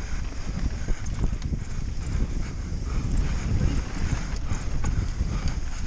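Mountain bike descending a rough trail at speed: tyres clattering over stones and bumps in quick, irregular knocks, with the bike rattling and wind rumbling on the microphone.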